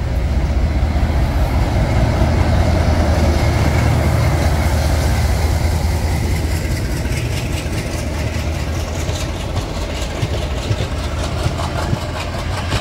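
Diesel locomotive passing close by on the adjacent track, its low engine drone loudest for the first half and fading. Then its passenger coaches roll past with a steady rattle of wheels on the rails.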